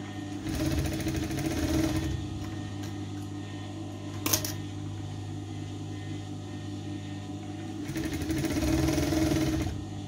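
Electric sewing machine stitching a ruffle onto the dress in two short runs of about a second and a half each, with a single sharp click between them, over a steady low hum.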